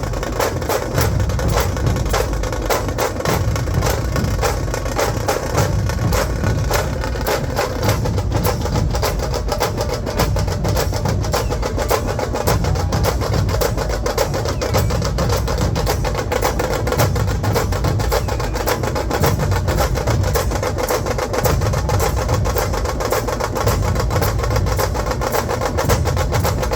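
Dhol-tasha ensemble drumming: big dhol barrel drums and tasha drums beating a fast, dense, unbroken rhythm.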